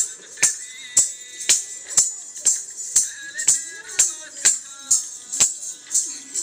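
Dance music with a steady beat of about two sharp strikes a second, bright jingling percussion and a melody over it.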